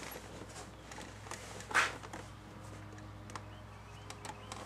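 Quiet garage room tone with a steady low hum, a few faint ticks and one brief soft rustle about two seconds in.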